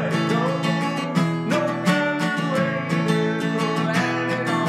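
Music: acoustic guitar strumming in an even rhythm. The deep bass drops out right at the start.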